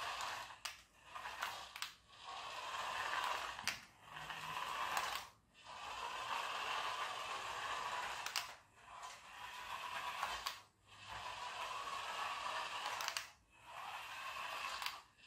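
Small toy radio-controlled car's electric motor and plastic gearbox whirring as it drives, stopping and restarting every one to three seconds, with a few sharp clicks.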